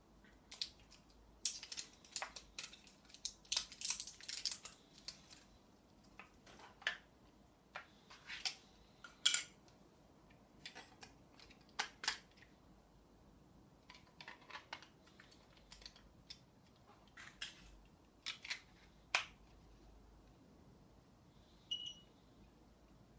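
Plastic clicks and rattles of a handheld remote control's battery compartment being opened and batteries being fitted, in irregular bursts. Near the end comes a single short electronic beep as a button on the remote is pressed.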